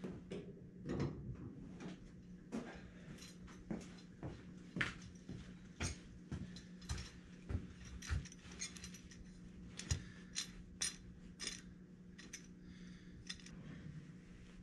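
Scattered light clicks and metallic clinks of hand tools and steel C clamps being handled and set, over a steady low hum.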